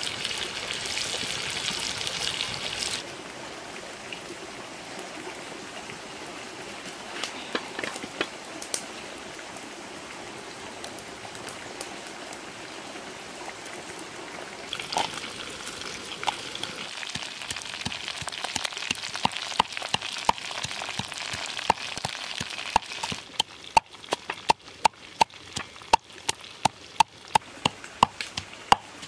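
Frogs boiling in a clay pot over a wood fire, a steady bubbling hiss that cuts off about three seconds in. Near the end, a pestle pounding in a clay mortar, about two sharp knocks a second.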